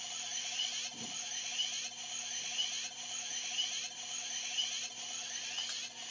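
Electronic standby sound from a Kamen Rider Ex-Aid DX toy weapon's speaker: a looping synthesized cycle of pulsing tones and sweeps that repeats about once a second.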